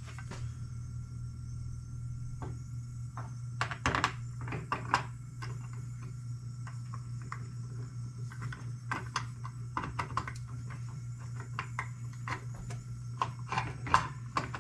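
Air compressor running with a steady low hum, which the compressor's automatic bleed keeps going, under scattered clicks and knocks of metal engine parts being handled and pressed into place by hand; the sharpest knocks come about four seconds in and near the end.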